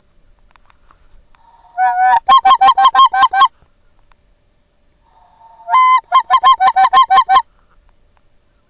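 Loud goose honking in two runs about four seconds apart. Each run is a drawn-out note followed by about eight quick honks.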